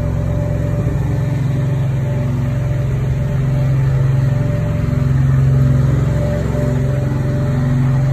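Engine of a truck-mounted carpet-cleaning machine running steadily at constant speed, a low hum with a few steady tones, growing a little louder about halfway through and then easing back.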